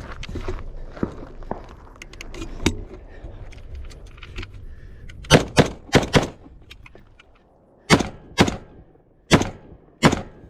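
Gunshots during a timed match stage: a quick string of four shots about five seconds in, then four more single shots spaced roughly half a second to a second apart. Gear handling knocks and rattles come before the shooting.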